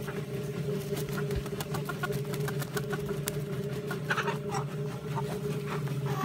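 Chicken plucker's electric motor running steadily with a hum, and light clicking and rattling throughout. A few short chicken calls come in about four seconds in.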